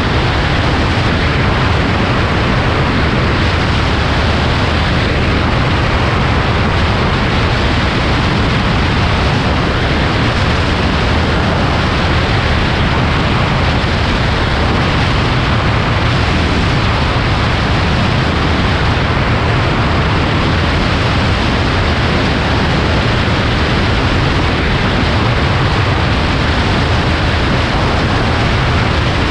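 Light aircraft in flight, heard as a steady, unbroken mix of engine and rushing air that is heaviest in the low range.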